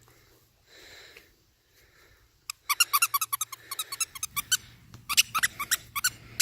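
A squeaky dog toy squeezed over and over as a puppy chews it: rapid, irregular high squeaks, starting about two and a half seconds in.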